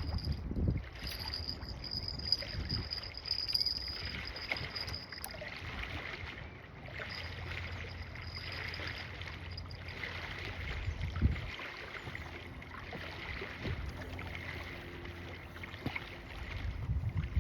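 Outdoor ambience at the water's edge: a steady rush of wind and water with low rumbling on the microphone, a thin high whine in parts, and one low knock about eleven seconds in.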